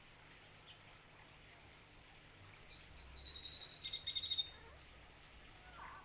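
Greater Antillean grackle calling: about halfway through, a run of sharp high notes that quickens into a brief, fast rattle of clicks, the loudest part.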